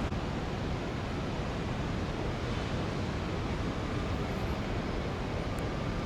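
Steady rushing outdoor noise, heaviest in the low end, with no distinct events: wind on the microphone mixed with the hum of surrounding traffic.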